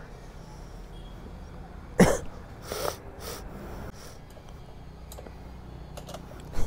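A person coughs once, sharply, about two seconds in, followed by a couple of fainter breathy bursts. A few light clicks of tools on the motorcycle's rear wheel come near the end.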